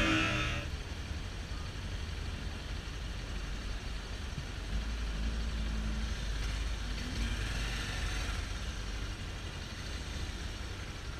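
Engines idling in stopped city traffic, a steady low hum. Background music fades out within the first second.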